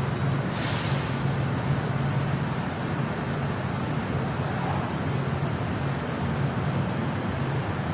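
Metro train in motion: a steady rumble and low hum of the running car, with a short hiss about half a second in.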